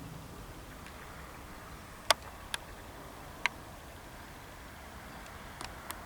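Steady background noise broken by about five short sharp clicks, the loudest about two seconds in and two close together near the end.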